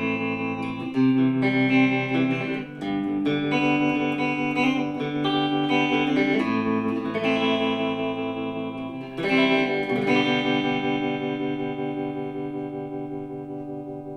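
Electric guitar played clean through a tremolo pedal: a few ringing chords whose volume pulses in a steady rhythm. The last chord, struck about nine seconds in, fades out slowly, still pulsing.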